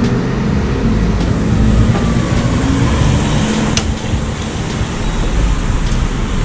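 Electric bike running after being switched on: a loud low rumble of road and wind noise on the microphone, with a faint motor whine and a few sharp clicks.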